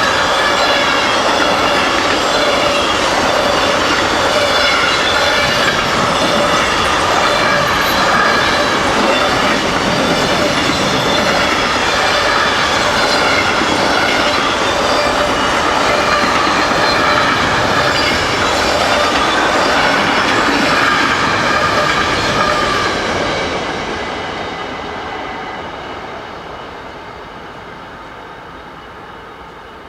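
A train passing close by over a level crossing, its wheels running on the rails, loud and steady for about 23 seconds and then fading away as it moves off.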